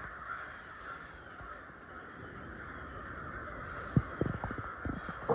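Crows cawing over and over in the distance. A few short, dull knocks come close together near the end.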